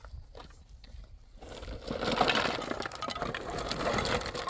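Hard fragments clattering and crunching together in a dense rattle, starting about a second and a half in and lasting about three seconds.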